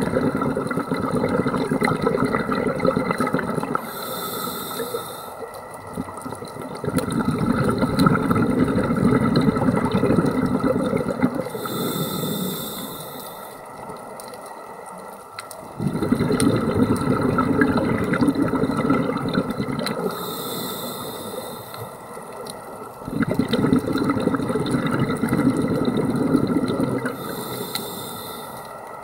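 Scuba diver breathing through a regulator: four breaths, each a short hiss of inhalation followed by a few seconds of bubbling exhaust.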